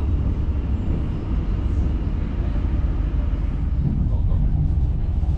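Steady low rumble of a loco-hauled ICRm passenger coach running along the track, heard from inside the carriage.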